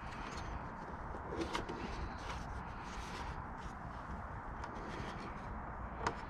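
A few light clicks and scrapes of a screwdriver working on a hard plastic motorcycle trim panel, over steady background noise, with a sharper click near the end.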